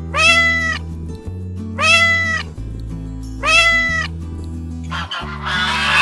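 Domestic cat meowing three times, about every second and a half to two seconds. Each meow lasts about two-thirds of a second and rises then falls in pitch. The meows play over background music, and near the end there is a short burst of noise.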